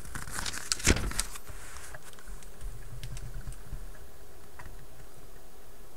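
A page of a small old book being turned by hand: a short burst of paper rustling and crackling in the first second or so, with the sharpest snap about a second in, followed by faint handling sounds.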